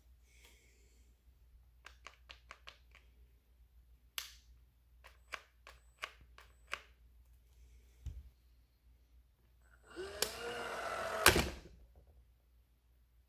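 Ridgid 18-volt cordless caulk gun being handled: a run of light plastic clicks and a low knock, then the gun's motor whirs for about a second and a half with its pitch wavering and stops with a sharp clack.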